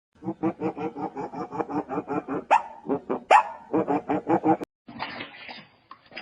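An animal barking in a fast run of short barks, about five a second, with two higher rising yelps in the middle. It cuts off about four and a half seconds in, and a different, hissier rhythmic sound follows.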